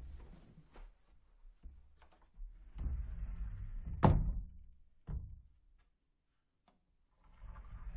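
Sliding closet door rolling along its track, then a longer slide about three seconds in that ends in a loud bang as the door hits the frame, with a lighter knock a second later. Another slide starts near the end.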